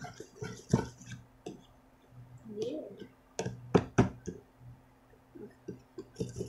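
Plastic spoon stirring sticky glue slime in a plastic tub, with scattered clicks and taps of the spoon against the tub. The loudest are three close together about halfway through. A steady electric-fan hum runs underneath.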